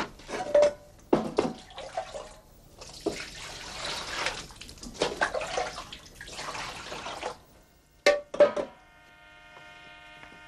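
Water poured into an enamel basin, a splashing rush lasting about four seconds, with clinks and knocks of the ladle and basin before and after it.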